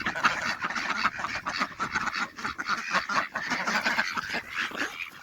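A mixed flock of domestic ducks quacking over one another without pause, excited by a treat of peas.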